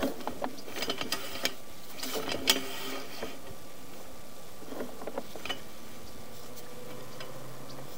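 Sewer inspection camera's push cable being pulled back: scattered clicks and rattles, mostly in the first three seconds and again about five seconds in, over a steady hum.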